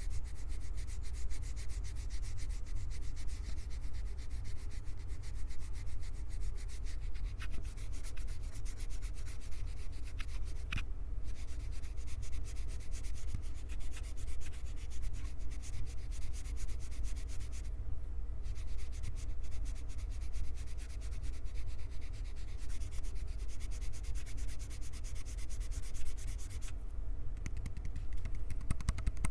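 Hands rubbing close against the microphone: continuous dry, scratchy rubbing over a low handling rumble, with brief breaks about 11, 18 and 27 seconds in.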